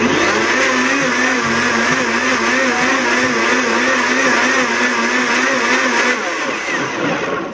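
Countertop blender running at high speed, blending a chocolate ice-cream mixture; its motor pitch wavers up and down about twice a second. It cuts off near the end.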